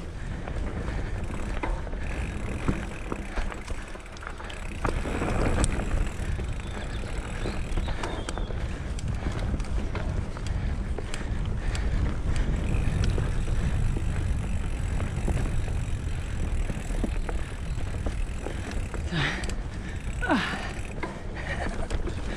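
Mountain bike descending a dirt forest trail at speed: tyres rumbling over the dirt, wind buffeting the camera's microphone, and the bike clattering over bumps with many short clicks and rattles.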